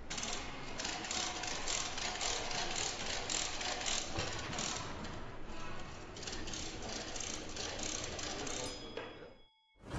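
Rapid mechanical clicking, several clicks a second, over a steady hiss. A brief high tone sounds near the end before the sound cuts off suddenly.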